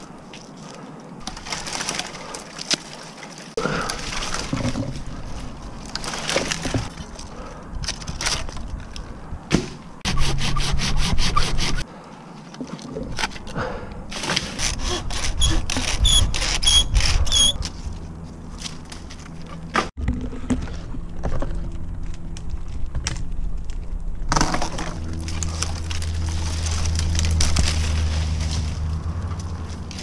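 Dead elm branches being worked off in the crown: wood cracking and breaking, with scraping and rustling of limbs and leaves. A loud, rapid run of clicks comes about ten seconds in, and a steady low drone rises at times, strongest near the end.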